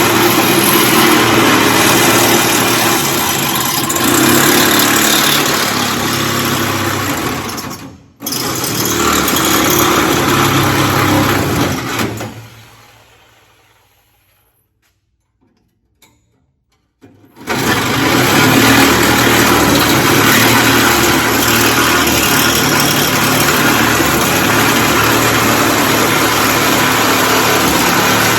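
Corded reciprocating saw cutting sheet metal in runs. It cuts out briefly about eight seconds in and starts again, winds down to a stop a few seconds later, then after a short silence starts again and runs steadily.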